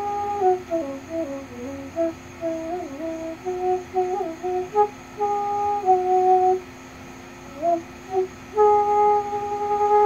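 Bamboo flute playing a slow melody: a held note, then a wandering run of short notes, a short pause and a quick rise into another long held note near the end. A steady high cicada drone sits underneath.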